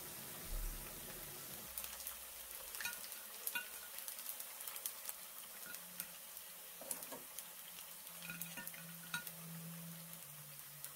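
Hot oil sizzling faintly as slices of vegan chả quế (wheat-gluten cinnamon loaf) fry in a pan, with many small sharp clicks and taps of chopsticks and a mesh strainer handling the pieces from about two seconds in.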